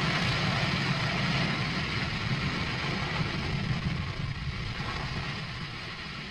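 Starship SN6 prototype's single Raptor rocket engine firing in flight: a steady rushing noise with a low rumble underneath, slowly growing fainter.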